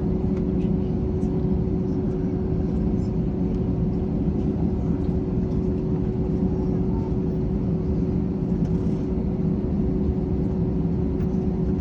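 Steady cabin noise inside an Airbus A321-211 as it runs on its CFM56 turbofan engines: a loud, even low rumble with a constant hum.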